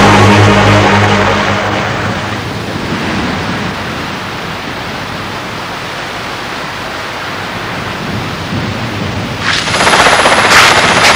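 Music fades out over the first two seconds into a steady rushing noise. About ten seconds in, the loud rotor and turbine noise of an RAF Westland Wessex rescue helicopter running on the ground starts suddenly.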